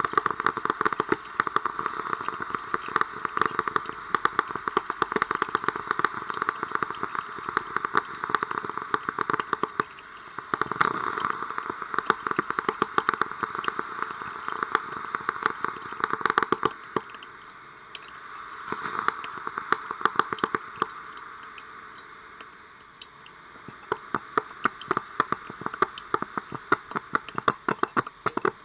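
Coffee machine brewing: a dense crackling, sputtering gurgle of hot water, swelling and easing with a few quieter stretches in between.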